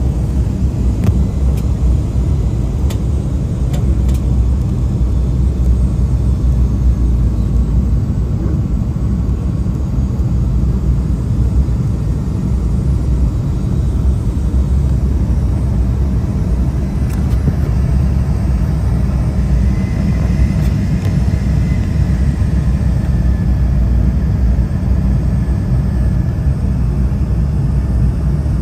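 Steady low rumble of airliner cabin noise during the descent: engine and airflow noise heard from inside the cabin.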